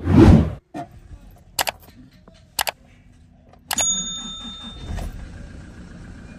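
Toyota Revo's 2.4 L 2GD diesel engine starting about halfway in, with a short chime at the same moment, then settling into a steady idle. This is a start after a crankshaft position sensor replacement that cures a crank-but-no-start fault. Before it there is a brief loud rushing sound at the very start and a couple of sharp clicks.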